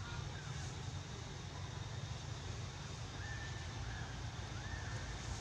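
Outdoor forest ambience: a steady low rumble with a few faint, short whistled animal calls, one right at the start and two more about three to five seconds in.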